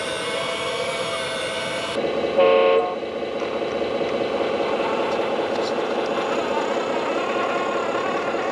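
Small electric motors of an RC excavator whining steadily, stopping about two seconds in. A short horn toot follows, then the steady run of an RC 8x8 truck's electric motor and gears.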